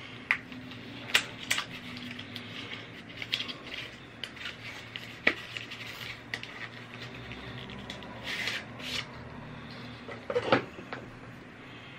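Small plastic packaging rustling, with scattered light clicks and knocks as a cable is unwrapped and handled on a desk. A louder cluster of knocks comes about ten and a half seconds in.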